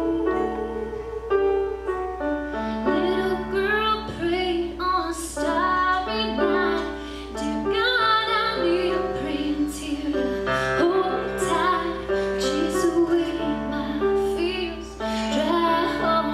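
Music: a song with a woman singing over instrumental backing.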